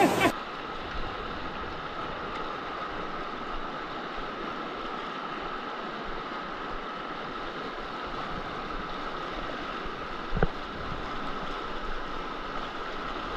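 Fast, shallow creek water rushing over rocks, a steady noise heard through a head-mounted action camera's microphone. A single knock about ten seconds in.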